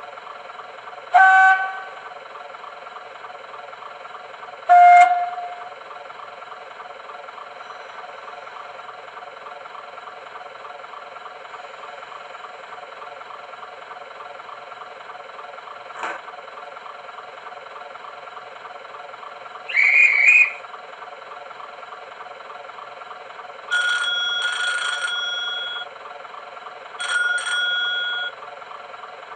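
Sound decoder in a model GWR diesel railcar playing its recorded diesel engine idling steadily. Over it come two short horn blasts, about one and five seconds in, a click and a short air hiss for the brake release, and near the end two buzzes: the communication buzzer code and the driver's buzzer reply.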